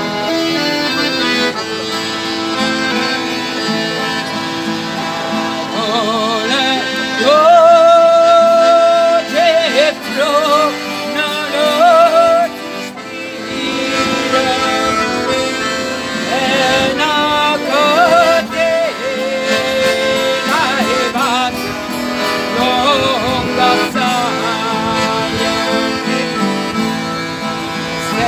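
Diatonic button accordion (organetto) and acoustic guitar playing a folk song, with a woman singing over them; her voice, with a wide vibrato, comes in about six seconds in.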